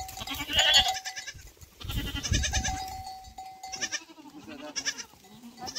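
Goats bleating, several wavering calls one after another and overlapping, with a brief low rumble about two seconds in.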